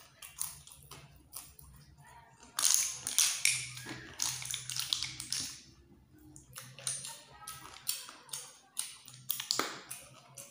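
Close eating sounds of cooked snails in coconut sauce: small clicks and taps of the shells being handled and picked at over a plate, with louder wet mouth sounds around three and five seconds in.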